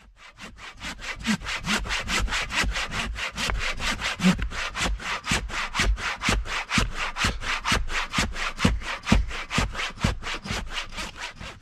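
Hand saw cutting through a fallen log in quick, even back-and-forth strokes, about four a second, fading in over the first second.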